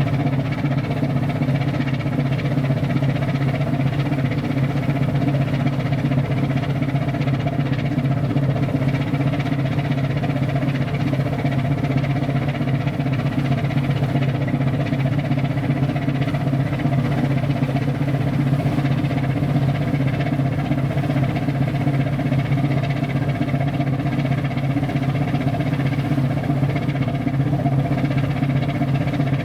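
A ship's engine droning steadily at one unchanging pitch.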